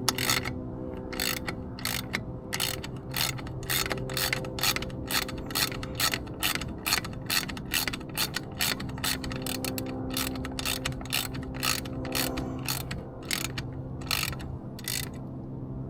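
Ratchet wrench clicking steadily, about two to three clicks a second, as bolts on a 25 hp Yamaha outboard's lower unit are run down and snugged up. The clicking stops shortly before the end.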